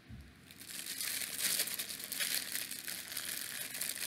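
Plastic snack pouch crinkling as hands handle it and pull it open, starting about a second in and running on as a dense crackle.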